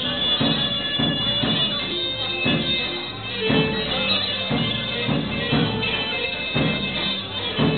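Live Pontic Greek folk dance music: a sustained high melody line over a steady drum beat of about two strokes a second.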